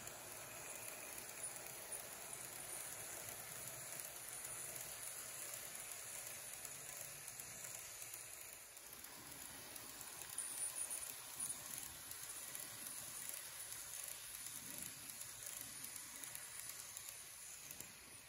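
N-scale model Odakyu Romancecar 50000 VSE train running on the layout track: a faint whirring, hissing running noise with a few light clicks from the wheels on the rails, louder about ten seconds in as it passes close.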